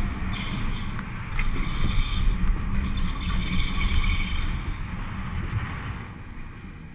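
Gerstlauer Infinity Coaster train running at speed on its steel track: low rumble of the wheels with wind buffeting the ride-mounted microphone and a few sharp clacks. The noise dies away over the last couple of seconds as the train slows on the brake run before the station.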